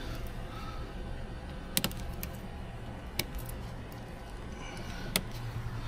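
Cutters snipping the excess tails off plastic cable ties: a few sharp clicks spaced a second or two apart, over a low steady hum.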